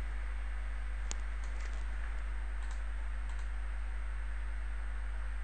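Steady low hum and hiss from the recording microphone, with a few faint, scattered clicks of a computer mouse and keyboard.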